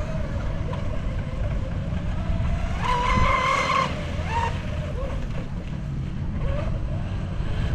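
Electric RC speedboat with a 3660-size 2600 kV brushless motor on a 4S battery, running across the water, its motor whine wandering up and down in pitch and loudest briefly about three seconds in. A heavy low rumble, like wind on the microphone, runs underneath.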